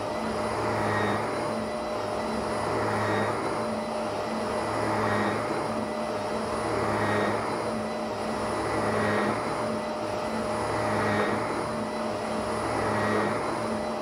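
Upright vacuum cleaner running on carpet: a steady motor whine and airflow rush that swell and fade about every two seconds as it is pushed back and forth.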